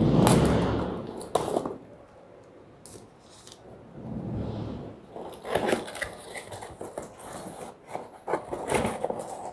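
Cardboard shipping box being opened by hand: packing tape slit and pulled, with the cardboard scraping and crinkling. A loud scrape comes in the first second, then a quieter stretch, then a run of short crackling scrapes and taps in the second half.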